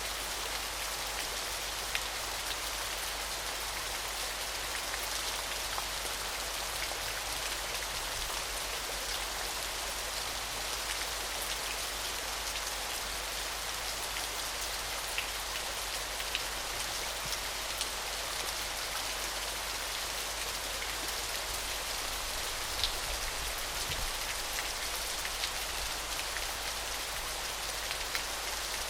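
Small waterfall splashing in a steady, even hiss of falling water, with scattered light drip and splash ticks.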